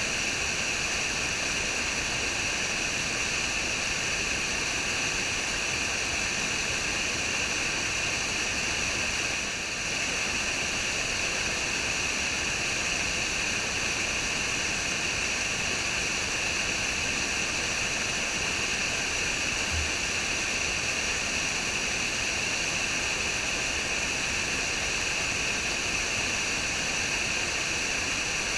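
Waterfall: water falling and rushing steadily as an even hiss, dipping briefly about ten seconds in.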